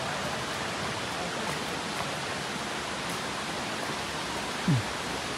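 Steady rushing hiss of a waterfall and creek water pouring over rock. A brief low, falling sound stands out near the end.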